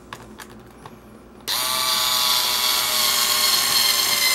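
Small cordless electric screwdriver starting up about a second and a half in and running steadily, driving a screw into the leather saddle; its pitch rises briefly as it spins up, then holds. A few light handling clicks come before it.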